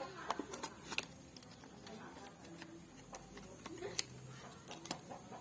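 Irregular light clicks and taps, about half a dozen spread over a few seconds, from plastic Rubik's cubes being handled.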